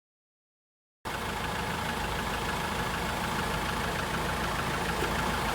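Land Rover Defender 2.4 TDCi Puma four-cylinder diesel engine idling steadily. It cuts in abruptly about a second in, after silence.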